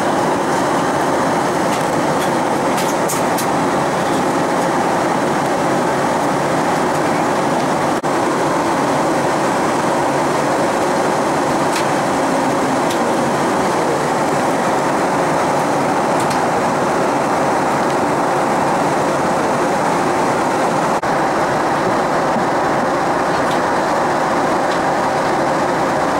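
Steady cabin noise of a Boeing 737-800 airliner in flight: the even rush of air along the fuselage and the hum of its CFM56-7B engines, with a few faint ticks.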